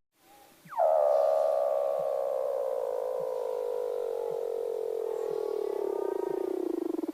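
A seal's single long call. It opens with a quick downward sweep, then settles into a warbling tone that slowly falls in pitch for about six seconds and breaks into rapid pulses at the very end.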